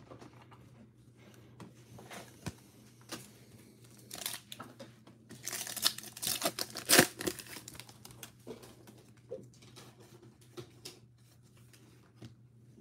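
A foil trading-card pack crinkling and being torn open by hand, with a cluster of loud tearing crackles in the middle, amid scattered lighter rustles of the wrapper and cards.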